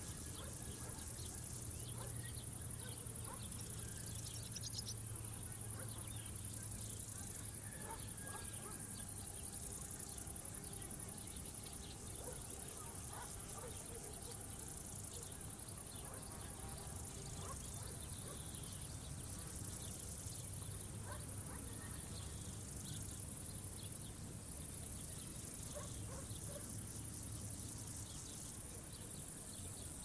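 Crickets chirping in a steady, high-pitched trill that dips briefly every few seconds, over a low steady hum, with faint scattered short calls.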